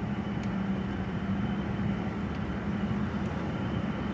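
Steady engine and tyre noise heard from inside the cabin of a GMC Envoy SUV on the move, with a constant low hum.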